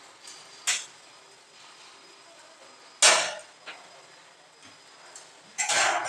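Sharp metallic strikes on the sheet-steel drum of a concrete mixer: three blows, about a second in, at three seconds (the loudest) and a longer clang near the end.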